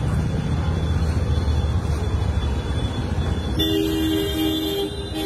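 Steady low rumble of street traffic. About three and a half seconds in, a vehicle horn sounds one steady honk of two tones for about a second and a half.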